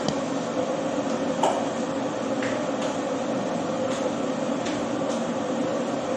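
A kitchen ventilation fan running steadily, a constant rushing hum with a held mid-pitched tone. A few faint clicks and taps come from hands working food over a stainless steel bowl.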